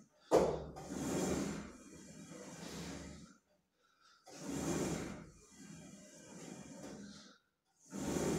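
A person breathing hard through lat-pulldown repetitions on a home multi-gym loaded with 33 kg, the cable and weight stack moving with each pull. It comes in three swells about four seconds apart, one per repetition, the first starting sharply.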